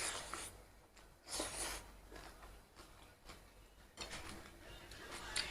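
Close-up eating sounds: two short, hissy slurps or sucks about a second apart, followed by faint clicking mouth and chewing noises and a sharp click near the end.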